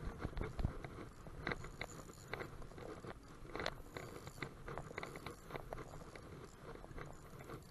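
Spinning reel being cranked to retrieve a lure, giving irregular soft clicks and ticks from the turning reel and the hands on the rod.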